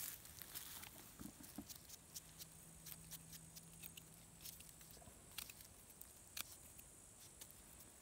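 Faint rustling and small sharp clicks of hands picking a russula mushroom out of moss and leaf litter and handling it with a knife. A low steady hum joins in from about two to five seconds in.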